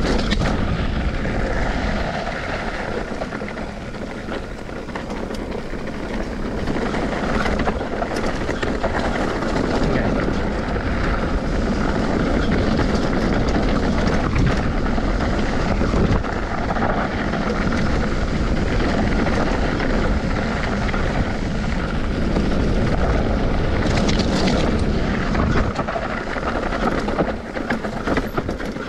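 A vehicle engine running steadily while under way, its level easing off slightly a few seconds in and again near the end.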